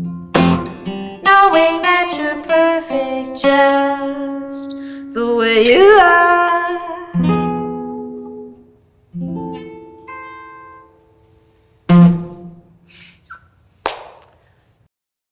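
Solo acoustic guitar playing the closing fingerpicked phrases of a folk song, notes ringing and fading as the song ends. A last plucked note or chord about twelve seconds in, then a short knock just before the end.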